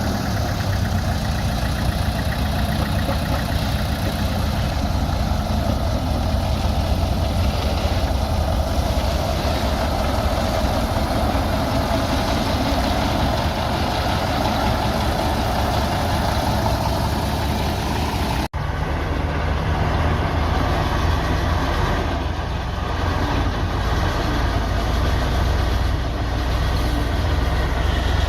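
Bulldozer's diesel engine running steadily, with a heavy low drone. Partway through there is a sudden break of a split second, after which the sound continues duller.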